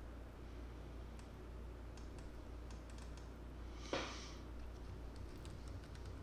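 Computer mouse clicks and keyboard typing: a few scattered clicks, then a quick run of keystrokes in the second half, over a steady low electrical hum. About four seconds in there is one short, louder burst of noise.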